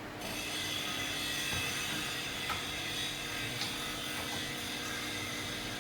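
Steady whine of a small electric motor running, starting just after the beginning.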